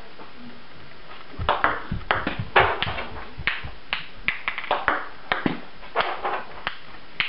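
Table tennis ball clicking off the racket and bouncing on the table during forehand tomahawk sidespin serves. It is a quick, irregular run of sharp clicks and bounces that starts about a second and a half in.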